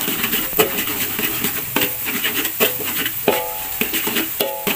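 Background music with a few held notes, over a metal spatula scraping and clicking against a wok as eggs are scrambled in hot oil, with a light sizzle.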